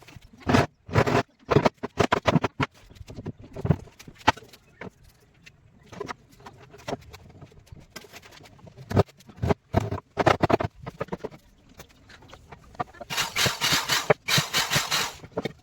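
Hand carving of wood: irregular sharp knocks, like a mallet driving a chisel, then two longer rasping strokes about thirteen seconds in.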